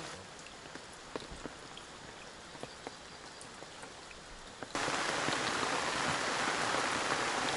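Rain falling, with single drops ticking here and there against a steady hiss. About two-thirds of the way through it suddenly becomes louder and denser.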